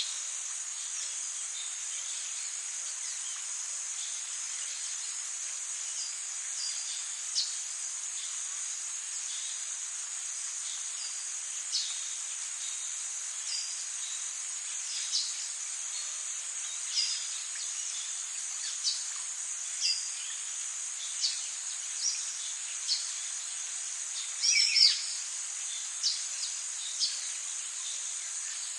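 Tropical rainforest ambience: a steady, high-pitched drone of insects, with short bird chirps every second or two. A louder bird call falls in pitch about 25 seconds in.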